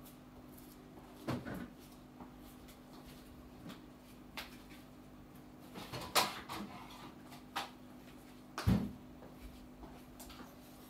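Kitchen cupboard doors and cookware knocking and clattering: about five separate knocks, the loudest two a little past halfway and near the end, over a steady low hum.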